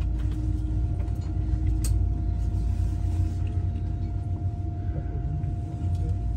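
Passenger train running, heard from inside the carriage: a steady low rumble with a faint constant whine above it.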